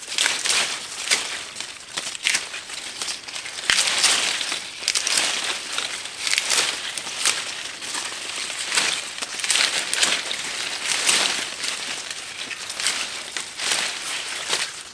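Stiff yucca leaves being pulled and torn off a young yucca's stem by hand, a string of irregular crackling and rustling rips, as the lower leaves are stripped from the pup.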